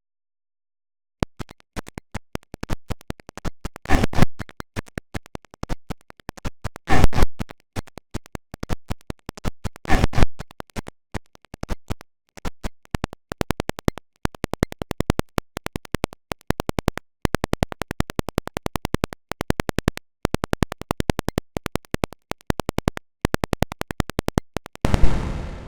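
Glitchy edited audio: sound chopped into very short repeated slices, making a rapid train of clicks and stutters like record scratching. Louder bursts come about 4, 7 and 10 seconds in, and a last burst near the end fades away.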